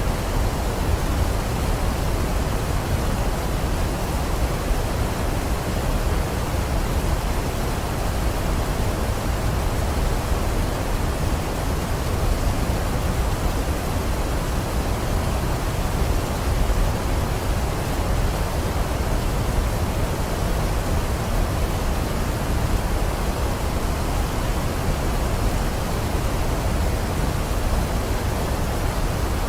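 Waterfall: a steady, unchanging rush of falling water, heaviest in the low end.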